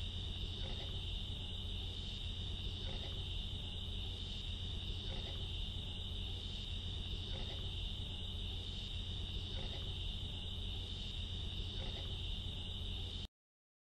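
Night insect chorus, a steady shrill trill, over a low steady hum, with faint short sounds recurring about every second and a half. It stops abruptly near the end.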